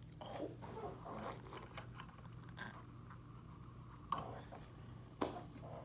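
Small clicks and taps of a can of sparkling water and its straw being handled, with two sharper knocks about four and five seconds in.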